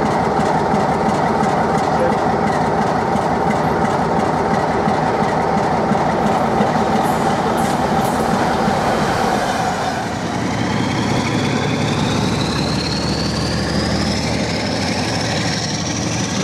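Class 47 diesel locomotive running, a steady engine drone. From about ten seconds in, a whine climbs steadily in pitch as the engine is opened up, with exhaust smoke showing.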